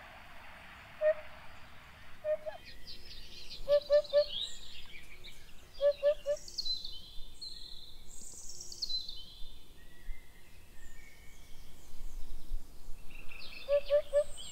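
Birds calling: a low three-note call repeated three times, with higher, falling song phrases in between. An even hiss-like buzz fills the first two seconds or so.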